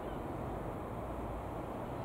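Guimbal Cabri G2 light helicopter passing overhead at a distance: a steady, low drone of its rotor and piston engine.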